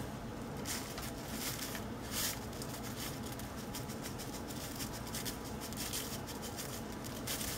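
Faint rustling and crinkling of a foil pouch as dry breading mix is poured from it into a plastic measuring cup, with light scattered scratches.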